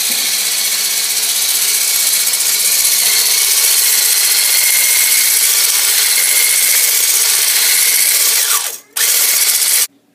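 Electric hand blender with a whisk attachment running steadily at high speed, whipping egg whites into a white foam in a stainless steel bowl. Near the end it winds down, runs again for about a second, and stops.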